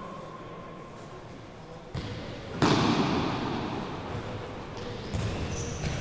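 Futsal ball thudding off feet and the sports-hall floor, the knocks echoing in the large hall, with voices around the court. The sound gets louder about two and a half seconds in.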